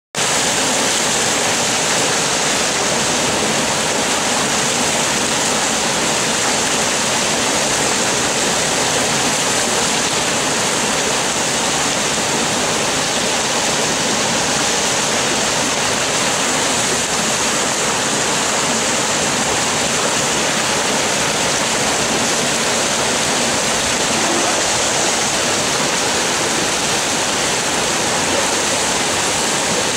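Creek water pouring over a low concrete weir and churning through white-water rapids over rocks below it: a loud, steady rush of water.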